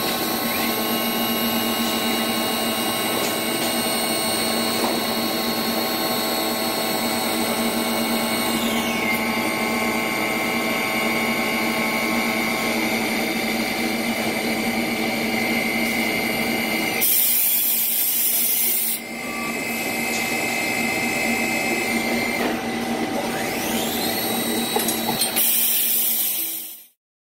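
2015 Nomura NN-16SB6 gang-type CNC lathe running a machining cycle: a steady mechanical whine whose pitch steps down about nine seconds in and climbs again near the end, as the spindle changes speed. Two short bursts of loud hiss cut in, one about seventeen seconds in and one near the end.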